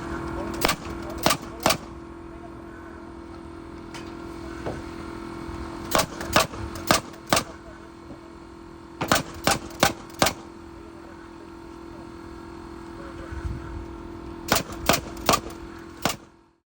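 Nails driven into wooden wall framing in quick runs of three or four sharp strikes, about four runs in all, over a steady hum. The sound cuts off abruptly near the end.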